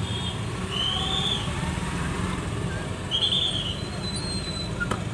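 Steady low rumble of car and road noise heard from inside a car in traffic. Two short high-pitched whistle blasts come about two seconds apart.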